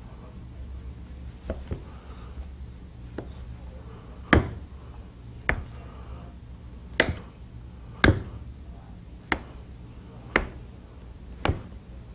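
Kitchen knife chopping through a log of soft paratha dough and knocking on a wooden cutting board, a sharp chop about once a second.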